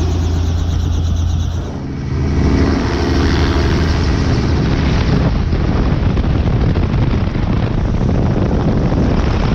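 Small helicopter's engine and rotor running, heard through an open doorway as a loud, steady drone mixed with rushing air. The sound changes abruptly about two seconds in and then holds steady.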